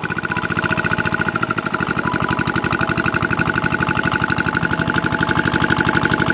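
Small single-cylinder diesel engine of an irrigation water pump running with a fast, even chugging beat, freshly started and gradually getting louder, with a steady whine above it.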